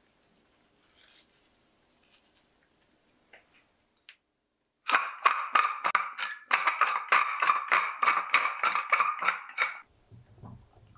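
Wooden pepper mill grinding peppercorns: a rapid run of crisp crunching strokes, about four a second, starting some five seconds in and lasting about five seconds with a brief break partway through.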